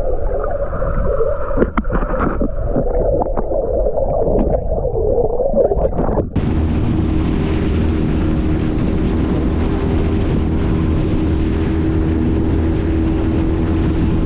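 Muffled underwater sound with a few knocks, then a sudden cut about six seconds in to an aluminium dinghy under way: a steady outboard motor drone under wind and rushing water.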